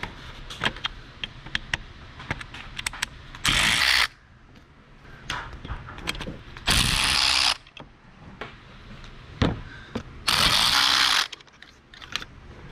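A power tool fitted with a T30 Torx bit runs in three short bursts, each under a second, backing out the three bolts that hold the intake flapper valve on a VW TDI's intake manifold. Light metallic clicks and taps of the tool come between the bursts.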